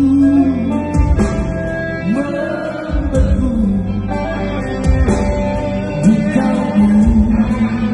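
Live rock band playing: a male lead singer sings over electric guitars, bass and drums, heard through the venue's PA.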